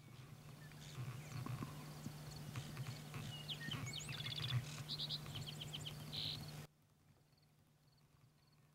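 Birds chirping in short high calls over a steady low hum, with a few soft low thumps. The sound cuts off suddenly about two-thirds of the way through, leaving near silence with faint distant chirps.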